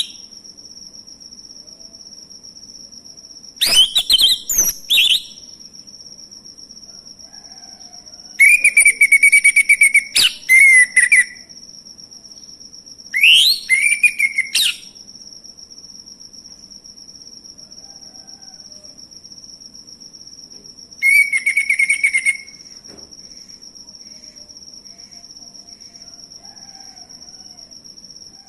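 Male orange-headed thrush singing in four short bursts of varied, sweeping phrases, with pauses of several seconds between them. A steady high-pitched whine runs underneath.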